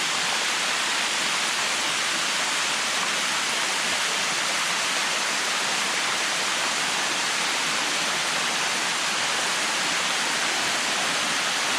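Water rushing steadily down a cascading waterfall, a continuous even hiss with no breaks.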